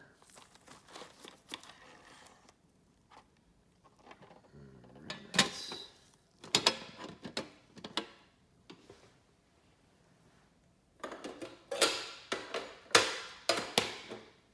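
Handling a trading-card collector tin and the packs inside it: scattered clicks, clatters and rustles, in bursts about five seconds in and again near the end, with quiet gaps between.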